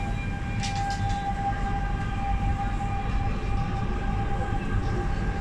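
Cabin of a Guangzhou Metro Line 6 linear-induction-motor train running: a steady low rumble with a steady high whine, and a few brief clicks about a second in.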